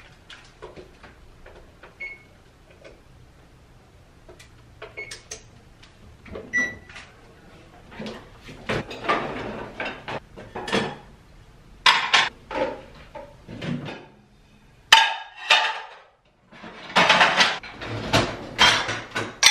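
Dishes and glassware clinking and clattering as a dishwasher is unloaded, with kitchen cabinet doors opening and closing and knocks of items being set on shelves; sparse at first, busier and louder in the second half.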